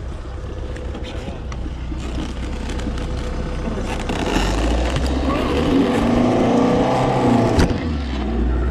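Engine of a car stuck in soft ground revving as it tries to drive out, getting louder about four seconds in, with voices over it.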